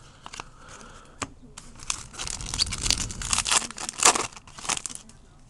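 Foil wrapper of a 2009 SP Authentic baseball card pack being torn open and crinkled by hand: a run of crackles that grows denser and louder about two seconds in, loudest about four seconds in.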